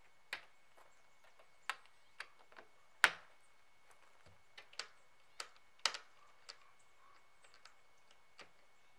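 Small metal toggle clasps on a rooftop tent shell being fastened one after another: scattered sharp clicks and knocks, the loudest about three seconds in.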